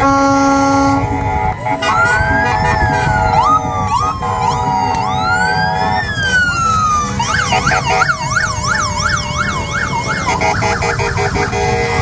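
Police motorcycle sirens sounding. First a slow rising-and-falling wail, then about seven seconds in a fast yelp of about two and a half cycles a second. Steady held tones come before and after.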